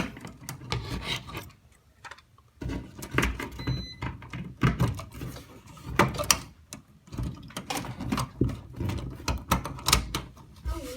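Irregular clicks, taps and rubbing as wires and plastic wire nuts are handled and pushed back into an electrical box, with a short quiet pause about two seconds in.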